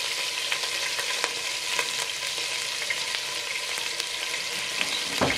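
Garlic paste frying in hot oil in a non-stick pot: steady sizzling with fine crackles, and a brief louder sound near the end.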